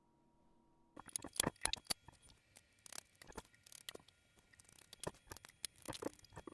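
Irregular small clicks, taps and scrapes of metal parts and tools being handled on a workbench, starting about a second in.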